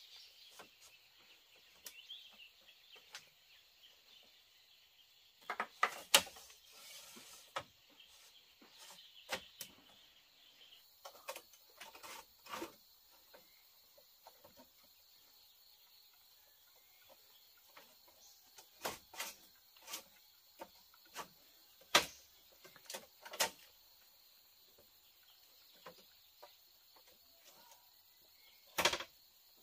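Irregular sharp knocks and taps, scattered singly and in short clusters, the loudest about six seconds in, two-thirds of the way through and near the end, over faint bird chirps.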